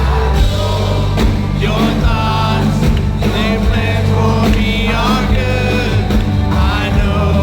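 Live worship band playing loud rock-style music with drums, and singers singing a melody without clear words.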